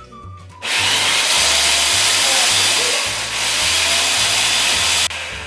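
Food processor motor running, blitzing Flamin' Hot Cheetos into a fine powder. It starts abruptly just under a second in, dips briefly about three seconds in, and cuts off sharply near the end.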